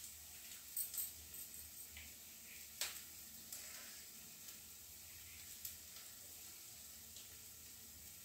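Faint steady sizzle of masala frying in a pan, with a few light clicks of a knife against a steel plate as a soft steamed cake is cut, the sharpest about three seconds in.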